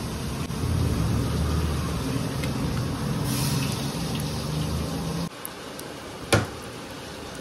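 A steady low hum that cuts off suddenly about five seconds in, followed a second later by a single sharp knock.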